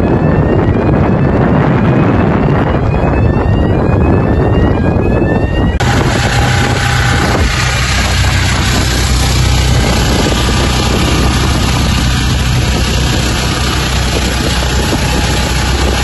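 Boat engine running under way, with wind on the microphone. About six seconds in it cuts to a steady engine hum, likely the fire pump feeding the hoses, under the hiss of water jets sprayed from fire hoses.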